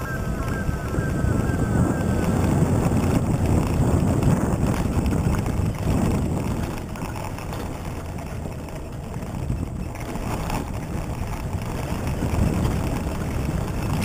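Toyota Hilux 4x4 driving off-road on a rough track: a steady engine and tyre rumble with frequent knocks and rattles, easing off for a few seconds in the middle.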